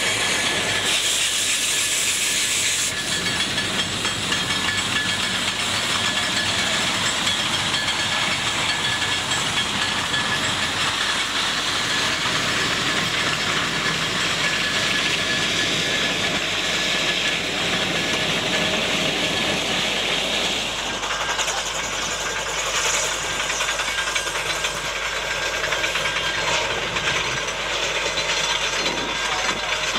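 Mount Washington Cog Railway steam rack locomotive venting steam with a loud, steady hiss. About two-thirds of the way through the hiss gives way to the rougher running noise of the train moving on the rack line.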